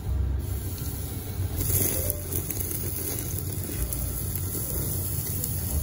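Slices of kalbi beef sizzling on a gas-fired yakiniku table grill as they are laid on the grate with tongs; the sizzle comes in about a second and a half in. Under it runs a steady low rumble from the grill table.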